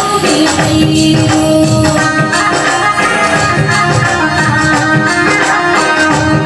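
Rajasthani devotional folk music played live: an instrumental passage of long held melody notes over a steady beat of hand drums and jingling percussion, with little or no singing.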